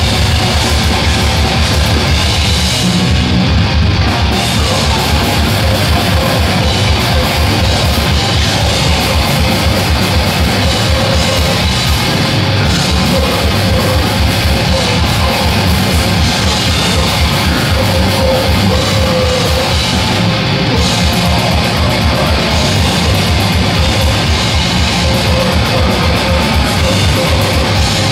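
Swedish death metal band playing live: heavily distorted electric guitars through Marshall stacks, bass, and drums with a rapid, unbroken kick-drum beat.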